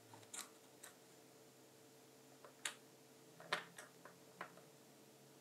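Half a dozen faint, scattered small clicks and taps as a small circuit board and a bent wire prop are handled and set in place on a cutting mat, over a faint steady hum.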